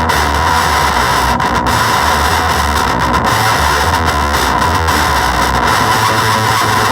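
Electric guitar played through a Gremlin Machine Shop Avedissian octave fuzz pedal: a thick, heavily fuzzed, steady-loud tone with low notes that change every second or so.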